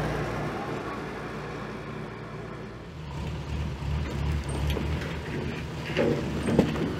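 Diesel truck engine running steadily, growing louder and deeper about three seconds in, with a few clunks near the end.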